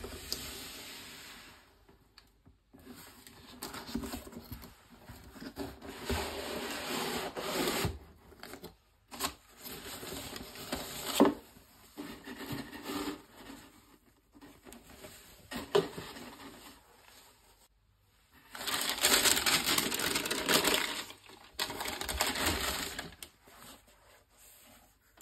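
Hands handling a sneaker box and its packaging: rustling of tissue paper and a fabric dust bag and scraping of cardboard, in uneven bursts with short pauses. A couple of sharp knocks fall in the middle, and the longest, loudest stretch of rustling comes about three quarters through.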